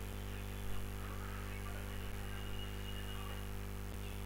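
Steady low electrical mains hum with faint background hiss.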